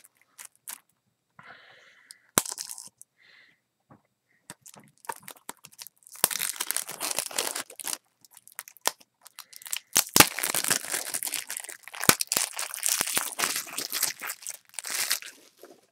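Clear plastic shrink-wrap being torn and peeled off a Blu-ray case. A few sharp clicks and short crackles come first, then continuous crinkling and tearing from about six seconds in until shortly before the end.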